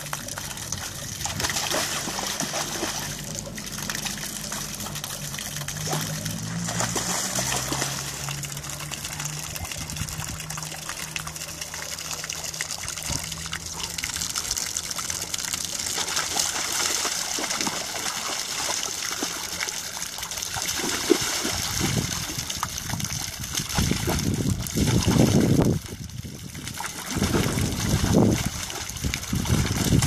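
Small garden fountain jet falling steadily into a shallow pond while a bullmastiff wades and splashes through the water. The splashing grows heavier and more uneven in the last third. A low hum runs under the first half.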